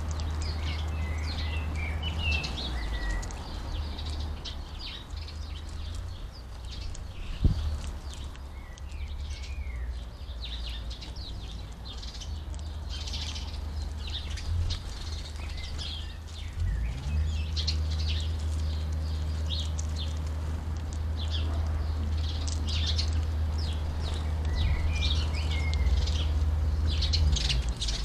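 Small garden birds, house sparrows and goldfinches, chirping and twittering, with many short high chirps throughout over a steady low hum. A single sharp knock about seven and a half seconds in.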